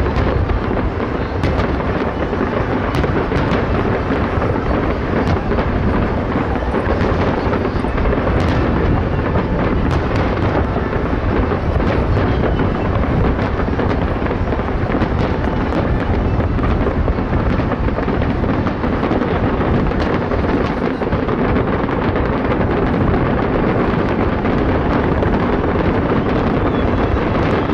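Many fireworks exploding at once, their bangs running together into a steady rumble with sharper cracks scattered on top.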